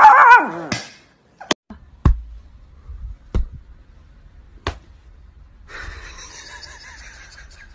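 A Chihuahua howling with its head thrown back; the howl wavers, drops in pitch and trails off within the first second. A few faint knocks follow over a low hum, and a faint hiss comes in near the end.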